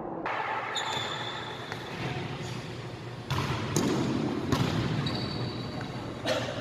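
Volleyball being struck again and again during a rally, sharp smacks about a second apart, with a couple of high sneaker squeaks on the hardwood court, all echoing in a large gymnasium.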